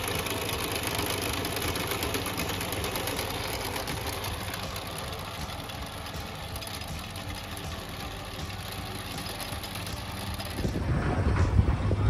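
Walk-behind chain trencher running steadily, its small petrol engine driving the digging chain through grassy soil. About ten and a half seconds in this gives way to wind buffeting the microphone.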